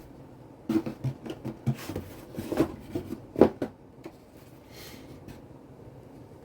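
Handling noise from unboxing HO scale model locomotives: a quick series of light knocks, clicks and rustles for about three seconds, the sharpest knock near the end of the run, then quiet room tone.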